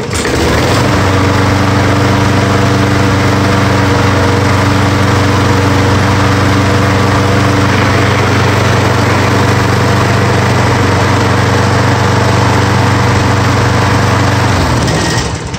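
Craftsman push mower's Briggs & Stratton 6.75 hp single-cylinder engine starting without priming and running at a steady speed. Near the end it shuts off and winds down over about a second.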